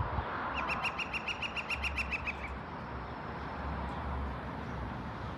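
Woodpecker calling: a rapid run of about fifteen evenly spaced high notes, roughly seven a second, lasting about two seconds.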